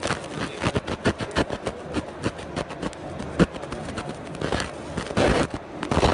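50 W fiber laser beam ablating a 0.6 mm gold sheet: an irregular crackling of sharp clicks, growing louder and denser near the end as the spark flares up.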